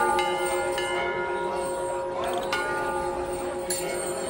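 Metal temple bells struck about three times, each strike ringing on so that the long tones overlap.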